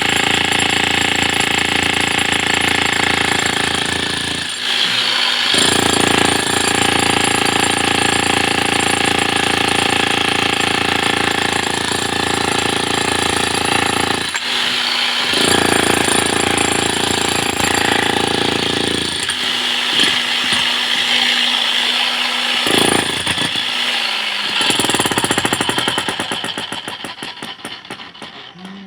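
Electric breaker hammer chiselling into a reinforced concrete slab, with a few short lulls between spells. It winds down near the end, its strokes slowing and fading.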